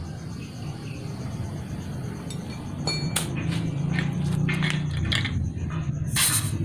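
Air hose chuck and fittings clicking at a motorcycle tyre's valve stem during inflation, over a low steady hum, with one short loud hiss of air about six seconds in.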